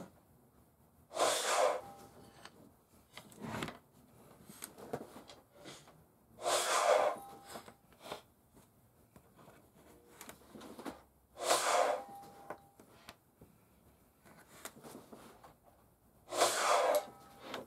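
A person breathing out heavily close to the microphone, four breaths about five seconds apart, some with a slight nasal whistle. Light clicks of wooden pieces being handled fall in between.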